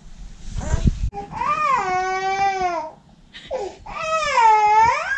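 Baby crying: two long wavering wails, the second starting about four seconds in, with a short cry between them. A bump sounds just before the first wail.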